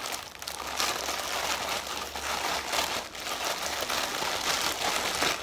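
Plastic courier mailer bag crinkling and rustling as it is handled and pulled at by hand, a continuous run of crackly rustles.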